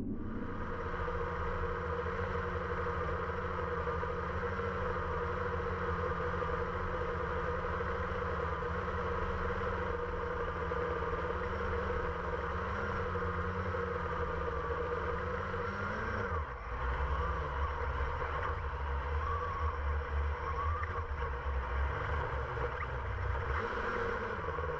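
Blade 350QX quadcopter's electric motors and propellers whining steadily in flight, heard from the GoPro mounted on the drone, over a low rumble. The pitch wavers as it manoeuvres and drops briefly about two-thirds through, after which the low rumble grows heavier.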